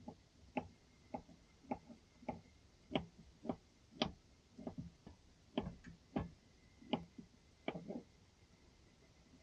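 A faint series of short knocks or ticks, about two a second, some louder than others, becoming uneven in the second half.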